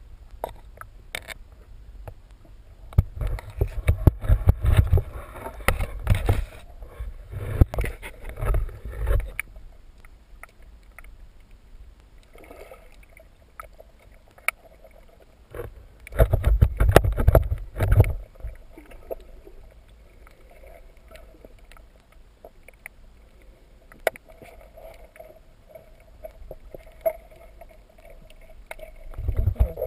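Underwater sound through a camera housing: two long rumbling bursts of bubbling water, one for several seconds early on and a shorter one about two-thirds through, with scattered sharp clicks in the quieter stretches between.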